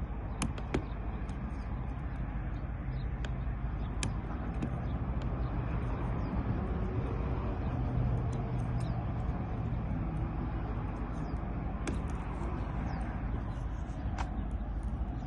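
Sparse small metallic clicks of a lock pick-decoder working the wafers of a vehicle door lock, over a steady low hum.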